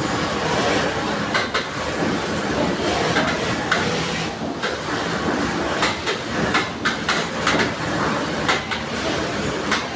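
Industrial sewing machine running: a steady mechanical noise with irregular sharp clicks through it.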